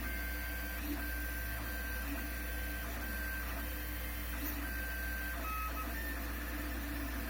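Lulzbot TAZ 6 3D printer running, its stepper motors whining at one pitch in a string of short moves that start and stop every half second to a second. The whine shifts pitch near the end, over a steady low hum.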